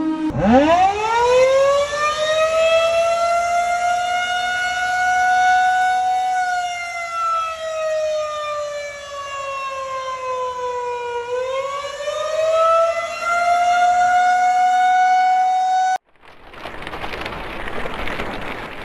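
Outdoor civil-defense tornado warning siren winding up from a low growl to a high, steady wail, sagging slowly in pitch, then rising again. It cuts off abruptly near the end, and a noisy rushing hiss follows for the last few seconds.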